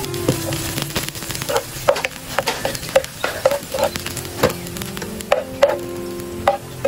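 A metal ladle stirs chopped greens frying in a nonstick pan, clicking and scraping against the pan about twice a second over a light sizzle.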